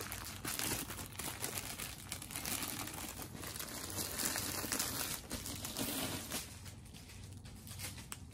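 Clear plastic wrap crinkling and rustling as it is pulled and peeled off a rolled canvas; it dies down over the last couple of seconds.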